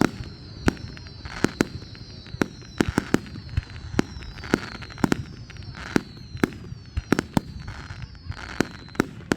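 Fireworks finale: aerial shells bursting in rapid, irregular bangs, several a second, with bursts of crackling and a run of short, high-pitched falling whistles.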